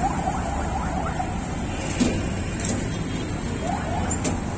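Steady street traffic rumble, with a sharp tap about two seconds in and another near the end.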